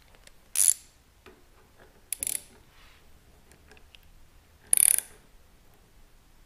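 Socket ratchet wrench on a long extension clicking as it is swung back while tightening a bolt, in three short runs of rapid clicks.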